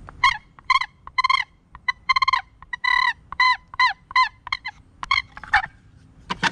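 Wooden turkey box call played by hand: its paddle lid is scraped across the box to make a run of a dozen or so short turkey yelps. Each note drops in pitch.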